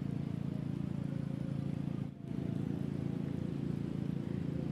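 A steady, low engine hum with a brief dip about two seconds in.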